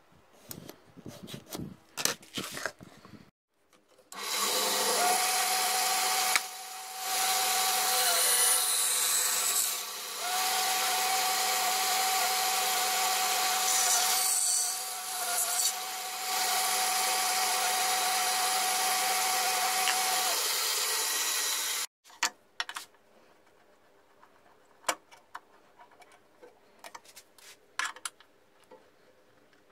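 Bandsaw running and cutting into a laminated plywood piece: a steady whine with cutting noise for about eighteen seconds, easing briefly a few times, then stopping suddenly. Light clicks and taps of hand tools and handling before and after it.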